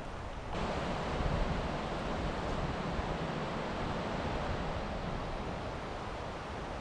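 Steady wind noise on the microphone: an even rush with a strong low rumble that starts abruptly about half a second in and holds steady.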